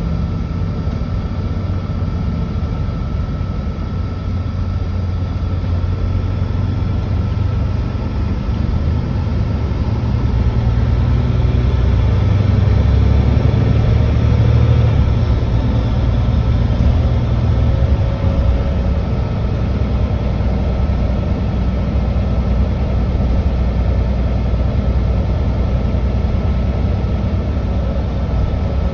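Mercedes-Benz Citaro C2 G hybrid articulated bus running, heard on board during a trip, with a steady low engine drone and a faint high whine. The engine grows louder about ten seconds in, then eases slightly.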